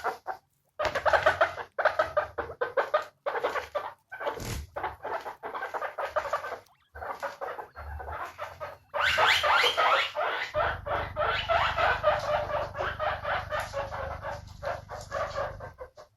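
Guinea pigs squeaking in quick runs of short, high calls with brief pauses between runs, the squeaking growing busier and louder about nine seconds in.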